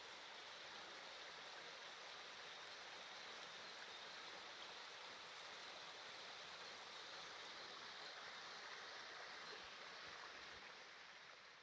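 Faint, steady rushing of a small forest stream trickling over stones, swelling up at the start and easing off near the end.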